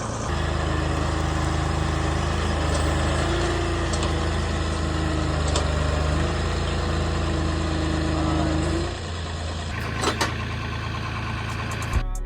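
Lawn mower's small engine running at low speed, its pitch stepping slightly up and down, then dropping away about nine seconds in; a few sharp clicks follow.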